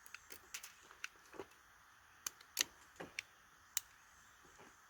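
Faint, irregular small clicks and taps of handling, about a dozen, the loudest about two and a half seconds in, as a cap-and-ball revolver is being loaded.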